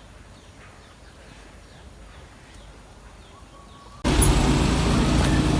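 Faint bird chirps over a quiet outdoor background. About four seconds in, an abrupt cut to a much louder scene with a vehicle engine running steadily.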